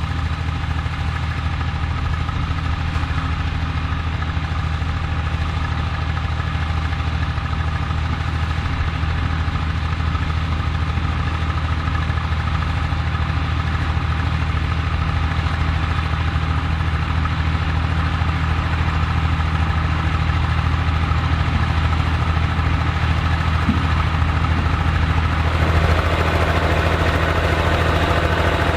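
Vintage tractor engine running steadily, getting a little louder and fuller near the end.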